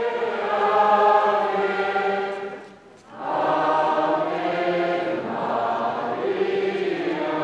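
Many voices singing a hymn together in two long, held phrases, with a brief break for breath about three seconds in.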